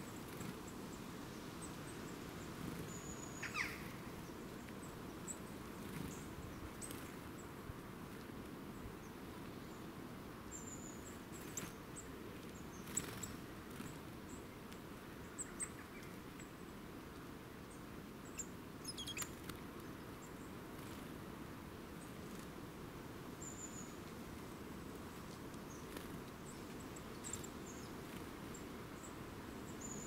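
Small songbirds giving short, high, thin call notes now and then, over a faint steady outdoor background, with a few light clicks and taps scattered through.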